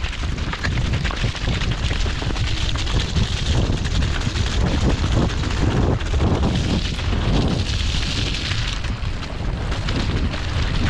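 Mountain bike descending a rough, muddy dirt trail: wind rushing over the microphone and tyres rumbling over the ground, with many knocks and rattles from the bike.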